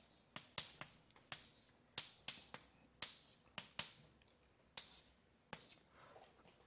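Chalk writing on a blackboard: a string of short sharp taps and brief scratches, about two a second, as each stroke of an equation goes down, stopping about five and a half seconds in.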